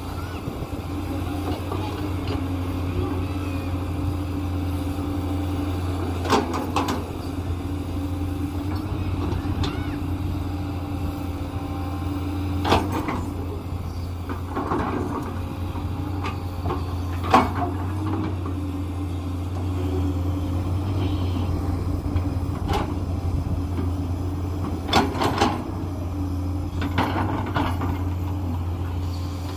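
JCB 210 tracked excavator's diesel engine running steadily under load while it digs soil, with occasional sharp knocks from the bucket and arm as they dig.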